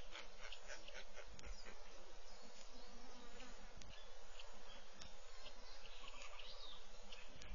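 Bush ambience: a steady drone of insects with occasional faint bird chirps, and a few soft knocks.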